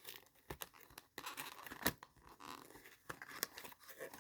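Handling of a new phone and its packaging: soft rustling and scraping with a few sharp clicks and taps, the clearest about two seconds in.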